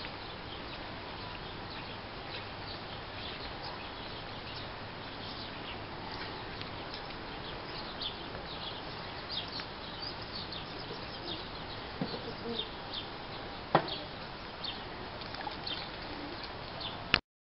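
Outdoor ambience: a steady hiss with many short, high chirps of small birds, thicker in the second half, and a single sharp knock about fourteen seconds in.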